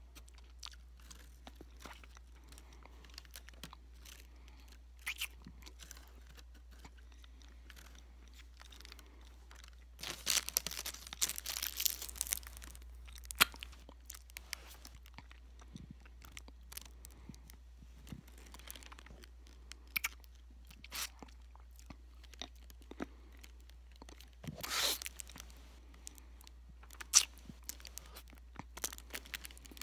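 Close mouth sounds of a person slurping and biting on a big candy cane: scattered short wet clicks, with longer, louder stretches about ten seconds in and again near twenty-five seconds.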